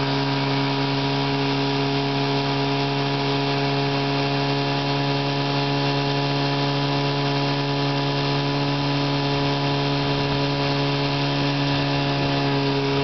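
1954 Johnson CD-11 5.5 hp two-stroke twin outboard motor running steadily at a constant speed. It still has a slight ignition misfire, which the owner puts down to rain moisture on the points under the magneto plate.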